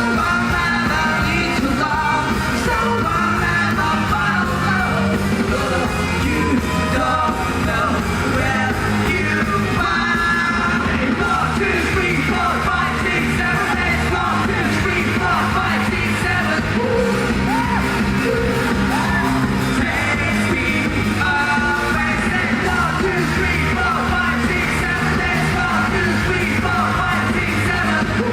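Rock band playing live with a male lead singer over drums, bass and electric guitar, loud and steady throughout.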